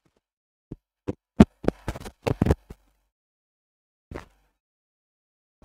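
A quick run of short knocks and taps, about nine of them between one and three seconds in with the loudest near the start, then one more about four seconds in.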